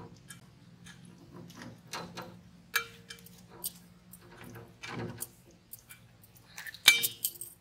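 Scattered light clicks and metallic clinks as a small hooked fish is handled and worked off the hook by hand, with wrist bangles clinking; the sharpest clink, with a short ring, comes near the end.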